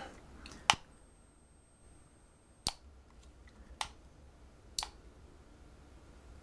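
Four sharp clicks at uneven gaps of one to two seconds from a Dazzer II ultrasonic dog deterrent being fired in short blasts, with a faint, thin, high-pitched tone after the first click; the deterrent's main output is pitched above human hearing.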